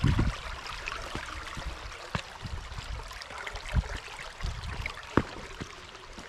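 Creek water rushing over rocks, with scattered thumps and knocks of footsteps stepping across stones through the water.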